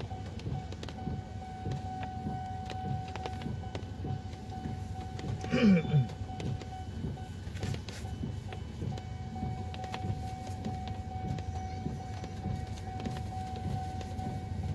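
Steady high warning tone of a railway level-crossing alarm, breaking off briefly after about seven seconds, over the low rumble of a car idling at the crossing in the rain. About six seconds in there is a short, loud sound that falls in pitch.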